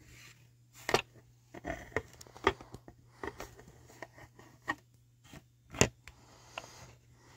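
Handling noise from a plastic scale model and a phone being moved around it: irregular small clicks, knocks and scrapes, the sharpest a click a little before the sixth second.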